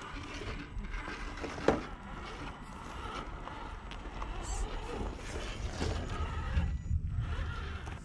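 HPI Venture RC rock crawlers driving over rocks and gravel: tyres crunching and knocking on stone, with one sharp knock a little under two seconds in.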